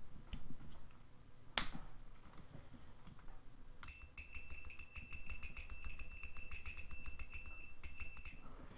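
Tacklife DM02A digital multimeter's continuity beeper sounding as the metal probe tips touch: a single click about one and a half seconds in, then a steady high beep for about four and a half seconds, with fast crackling ticks from the tips rubbing together. It keeps sounding even at a barely-there touch, a sign of a responsive continuity tester.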